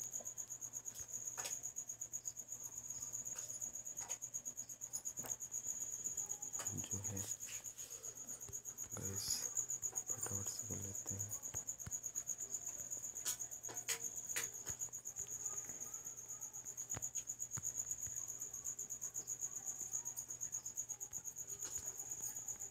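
A cricket chirping in a steady, fast, high-pitched trill that goes on without a break, with a few faint clicks and low knocks scattered over it.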